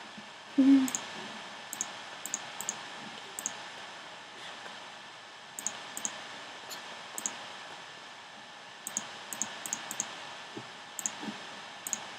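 Computer mouse clicks, about twenty sharp, short clicks at irregular intervals, often in quick pairs, over a steady background hiss. A short low hum a little under a second in is the loudest sound.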